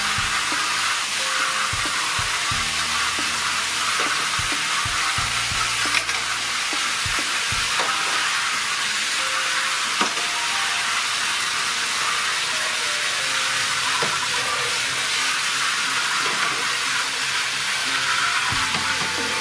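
A fine jet of water sprays steadily from a PVC pipe nozzle into a large aluminium basin and onto dishes, a continuous hiss, with a few clinks of plates and cutlery being washed.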